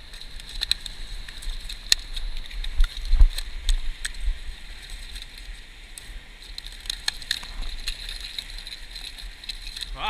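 Wind buffeting a body-worn camera's microphone over the wash of surf breaking on lava rock, with scattered sharp clicks and knocks, most in the first few seconds and again about two-thirds of the way through.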